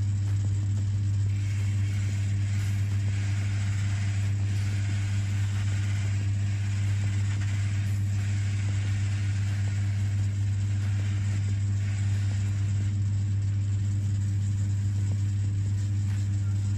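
Shoe finishing machine's electric motor running steadily with a low hum, its brush wheels spinning. A brushing hiss comes and goes in several spells as an inked leather shoe is pressed against a rotating brush to smooth and finish it.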